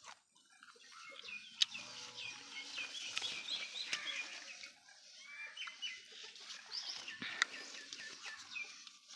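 Birds calling: many short, quick chirps, with two sharp clicks, one about a second and a half in and one near the end.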